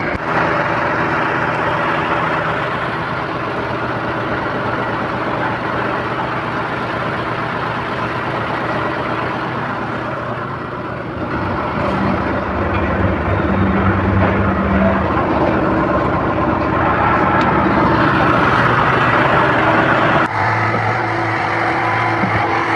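Heavy diesel engine of a concrete pump truck running steadily, its tone shifting about twelve seconds in and changing abruptly near the end.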